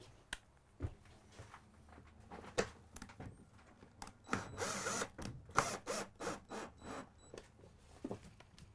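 A power drill running in short bursts, the longest lasting about a second, among clicks and knocks of tools being handled.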